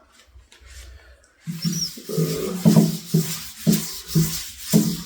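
Tack cloth wiped back and forth over the sanded wooden tabletop to pick up sanding dust, a rhythmic rubbing hiss of about two strokes a second that starts about one and a half seconds in.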